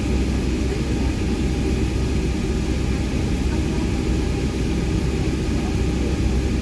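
Steady cabin noise of a Boeing 757-200 with Rolls-Royce RB211 engines: a low engine rumble under an even airflow hiss, with no change in pitch or level.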